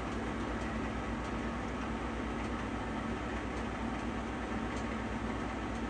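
Pinacho SP/250 lathe running with its carriage under power feed at an increased feed rate: a steady mechanical hum from the drive and feed gearing, with a fast, even low pulsing underneath.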